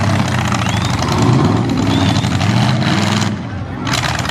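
Demolition derby pickup truck engine running loudly, its pitch rising and falling a little. The higher noise above the engine briefly drops away about three and a half seconds in.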